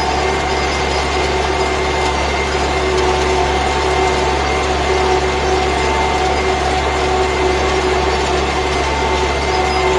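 MTZ 820.2 tractor's four-cylinder diesel engine running steadily under load while pulling a mounted plough through the soil, a constant low drone with a few steady whining tones over it.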